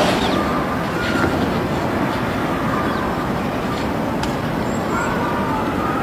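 Steady outdoor background noise: an even hiss with no clear events, with a few faint brief tones now and then.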